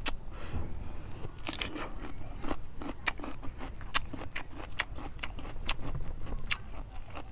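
Close-miked crunchy chewing: a person eating crisp food, with sharp, irregular crunches about two a second.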